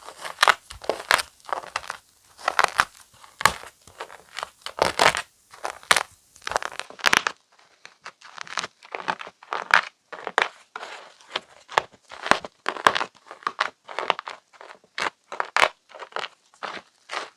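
Crisp, dry chalk mini blocks being crushed and crumbled, a quick irregular run of crunches and crackles. From about seven seconds in the crunches are a little duller.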